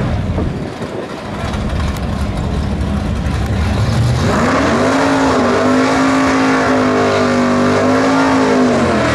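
An old-school drag car's engine rumbles roughly, then about four seconds in revs up and is held at high revs through a burnout, its rear tyres spinning on the wet track. The engine note rises, holds steady for several seconds and dips slightly near the end.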